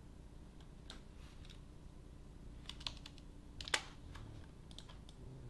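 Scattered clicks of a computer mouse and keyboard at a desk, a dozen or so irregular taps with the sharpest a little before the four-second mark.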